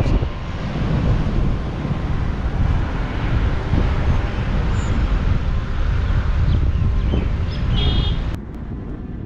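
Wind buffeting the microphone over the rumble of a vehicle moving along a road. About eight seconds in, the sound cuts suddenly to something quieter.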